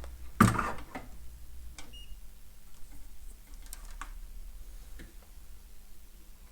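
Light handling clicks and knocks at a workbench during electronics repair, the loudest a short knock about half a second in, with a brief high beep about two seconds in, over a low steady electrical hum.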